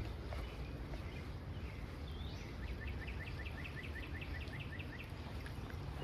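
A songbird singing: a short slurred note, then a rapid trill of repeated chirps, about five a second, lasting around two and a half seconds in the middle, over a steady low outdoor rush.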